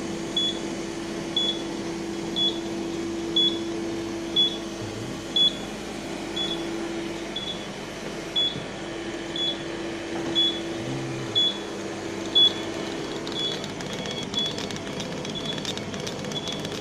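A short high electronic beep repeating about once a second over the steady hum of a 40W CO2 laser cutter's running equipment. Near the end, faint rapid ticking comes in as the laser head starts moving to cut.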